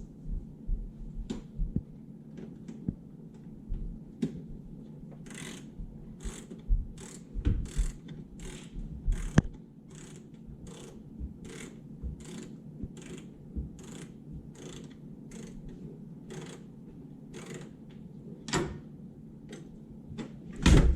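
Screwdriver backing out the oven's mounting screws: a steady series of short clicks about twice a second, with an occasional sharper click.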